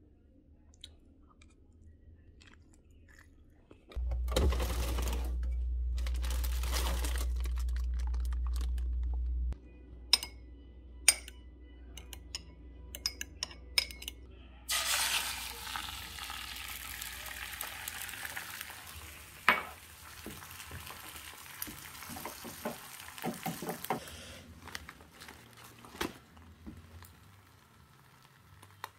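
Kitchen cooking sounds: about four seconds in, a loud low hum lasts about five seconds; then a run of sharp clicks, a metal fork on a ceramic bowl as eggs are beaten, followed by about nine seconds of steady hiss with scattered knocks, eggs frying in a non-stick pan.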